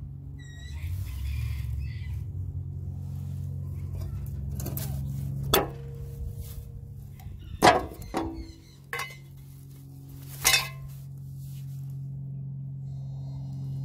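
Sharp metal clinks and knocks, about five spread over several seconds, the loudest a little past halfway, as a wrench works at a rusted lawn mower blade bolt. A steady low hum runs beneath them.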